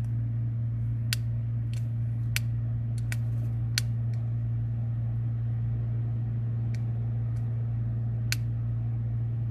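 Sharp clicks of a small LED flashlight's push-button switch, several within the first four seconds and a few more near the end, over a steady low hum.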